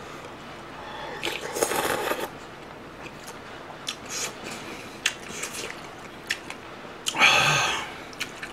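Person slurping soup broth off a spoon, twice: about a second in and again near the end. Soft chewing and mouth clicks come in between.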